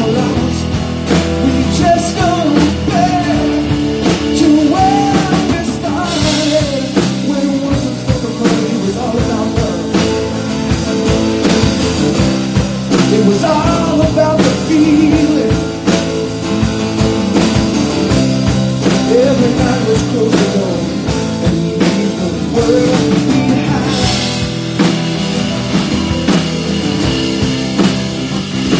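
Live rock band playing a song: a man singing over acoustic guitar, drum kit, bass and piano.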